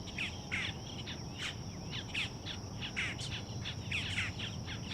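Birds chirping: many short, quick down-slurred chirps, a few each second, over a steady high insect buzz.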